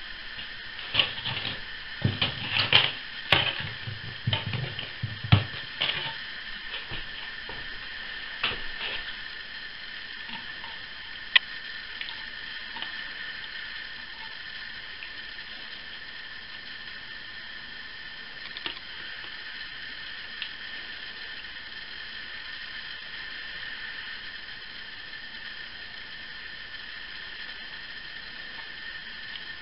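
Clicks and light knocks of hard plastic parts being handled on a table, many in the first several seconds and one sharp click a little later, over a steady hiss with a faint high whine.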